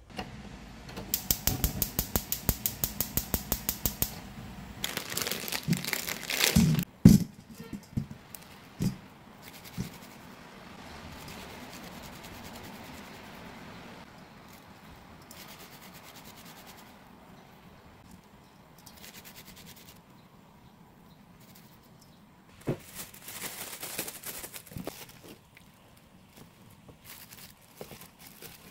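Kitchen prep sounds by hand. First a quick run of sharp clicks, about seven a second, lasting a few seconds, then several knocks. After that comes a long stretch of soft rubbing as cooked naengmyeon noodles are worked between the palms in a stainless steel colander, and near the end a few more knocks and rustles.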